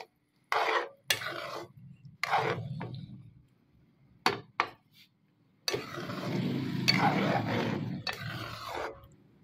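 Metal slotted spoon scraping fried chicken pieces from a bowl into a metal pot of thin sauce and stirring them in. There are several short scrapes, then continuous stirring and scraping against the pot for the last three seconds or so.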